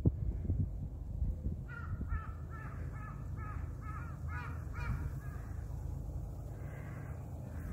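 A crow cawing in a quick run of about nine harsh caws, starting about two seconds in, with one fainter caw near the end.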